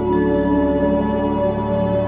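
Background music: slow ambient chords held over a steady low drone.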